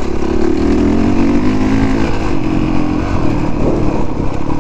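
Honda CRF450R's 450cc single-cylinder four-stroke engine running under throttle while riding a gravel trail. It holds a steady note for about two seconds, then turns rougher and less even.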